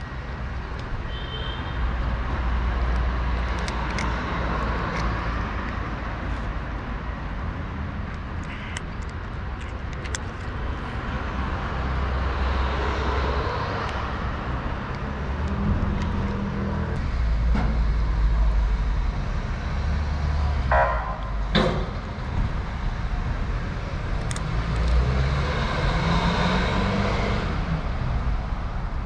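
Street traffic: cars passing, a low rumble that swells and fades several times.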